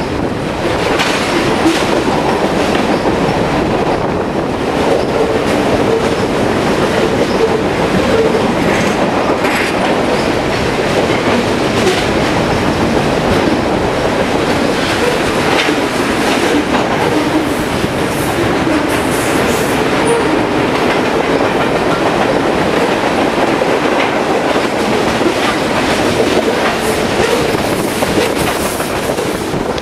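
Freight cars of a long mixed freight train (tank cars, boxcars and covered hoppers) rolling past at track speed: a steady rumble of steel wheels on rail with frequent clicks over the rail joints and now and then a brief high wheel squeal.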